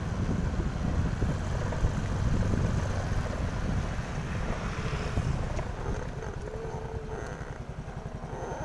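Wind buffeting the microphone over the running noise of a moving vehicle, most likely the vlogger's motorcycle, easing somewhat in the second half. A faint short held tone comes through about two thirds of the way in.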